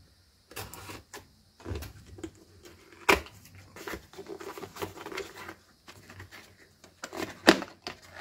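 Cardboard box being opened by hand: a hobby knife slitting the box's end, then the cardboard flap torn and pried open, with scraping and rustling and a few sharp clicks, the loudest a little after three seconds in and again about seven and a half seconds in.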